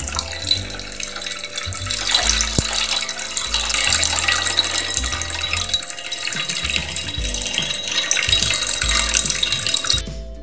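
Water running from a small tap into a miniature bathtub, a steady splashing hiss that cuts off abruptly near the end, with background music underneath.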